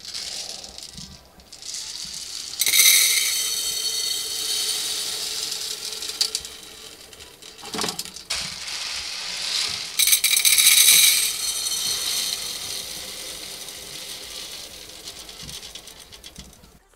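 Small scent booster beads poured from plastic bottles into tall glass jars, a dense rattle of beads on glass. It comes in two pours, one starting a few seconds in and the second about ten seconds in, each tailing off gradually, with a short knock in between.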